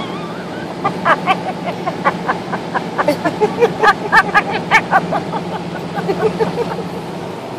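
Amazon parrot chattering in a quick string of short chirps and talk-like sounds, over the steady low hum of a car on the road.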